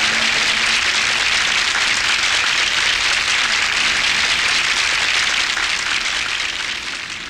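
Audience applause at the end of a song: dense, even clapping that fades out near the end.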